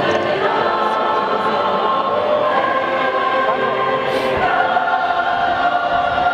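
Large mixed choir singing held chords in harmony, moving to a new chord about four and a half seconds in.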